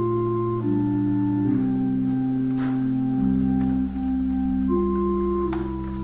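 Church organ playing slow sustained chords that change every second or so, with deep bass pedal notes coming in about three seconds in. Two faint clicks are heard over the music.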